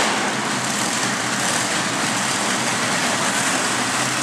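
Monster truck engines running, a steady loud din without clear revs or crashes.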